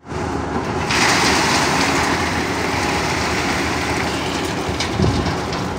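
Wet concrete sliding out of a tipped steel hoist hopper onto a rebar slab, a rushing hiss that starts suddenly about a second in and slowly tails off, over the steady low running of an engine. A thump near the end.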